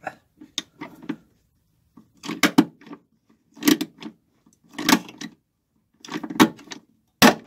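Hand pop-rivet gun squeezed four times in succession, each stroke a short rasping burst, pulling a rivet into a 1 mm aluminium plate. Near the end comes one sharp snap as the rivet's mandrel breaks off and the rivet sets.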